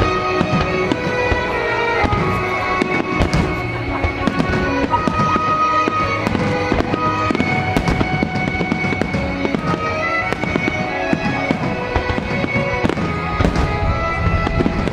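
Fireworks shells bursting in quick succession through the grand finale of a display, with music playing alongside.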